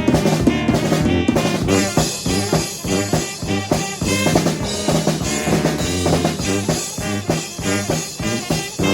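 Small brass band of four horns with a drum kit playing live, with the drums prominent.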